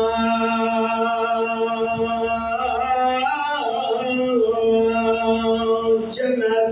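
A man's amplified voice chanting a mourning recitation in long held notes, the pitch rising and falling back around the middle.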